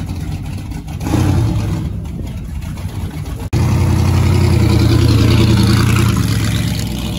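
Large V8 engine of a custom motorcycle trike running at low speed and being revved as the trike pulls away. It rises about a second in, jumps to its loudest about three and a half seconds in, then eases off near the end.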